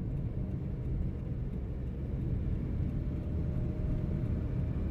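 Engine and road noise inside the cabin of a 2008 Toyota Corolla Allion with the 1.5 L 1NZ-FE engine on a test drive: a steady low rumble that grows a little louder as the car accelerates.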